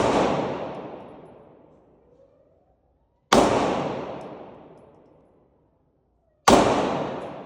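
Gunshots: one right at the start, then two more about three seconds apart. Each shot rings out in a long echoing decay of about two seconds.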